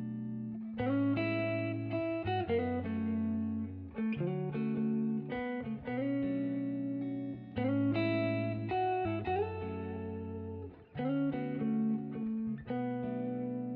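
Background music led by a plucked guitar, with chords changing every second or two in a repeating pattern.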